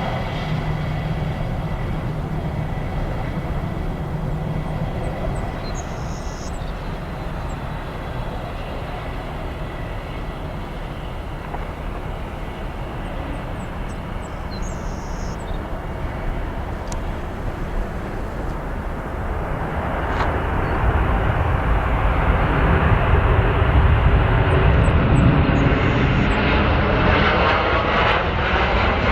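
Airliner's engines running steadily, then growing louder about two-thirds of the way through as the aircraft passes close by, with a swirling, phasing whoosh near the end.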